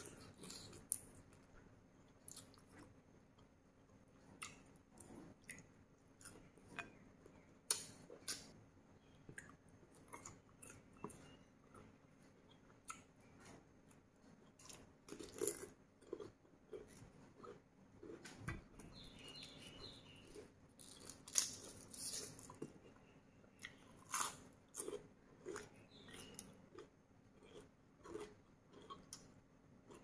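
A person chewing food close to a clip-on microphone, with scattered short, crisp crunches from biting through pickled crab and raw cucumber.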